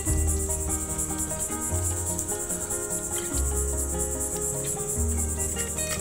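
Insects chirping in a high, steady pulsing trill, with background music underneath, its low notes changing about every second and a half.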